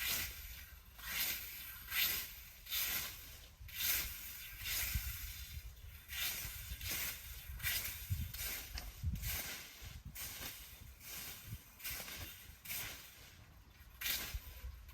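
Repeated rough scraping strokes, about one a second, with a faint low rumble underneath.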